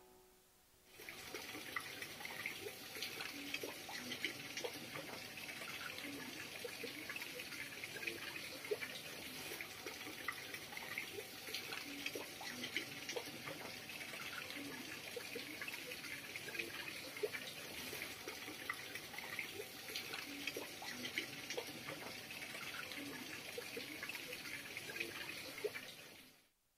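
Faint trickling water with many small drips and splashes, starting about a second in and cutting off suddenly just before the end.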